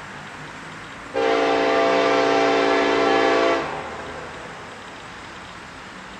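Diesel locomotive air horn sounding one long blast of about two and a half seconds, a multi-note chord, starting about a second in.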